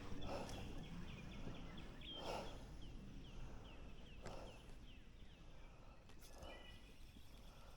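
A small bird singing a fast run of short, high, repeated chirps, about three a second, with a brief call near the end, over a low outdoor rumble.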